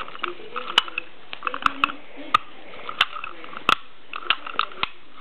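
Fire-Lite BG-8 manual fire alarm pull station being reset by hand, from activated mode back to normal. It gives a dozen or so sharp metallic clicks and rattles at irregular intervals, the loudest a little under a second in and near the four-second mark.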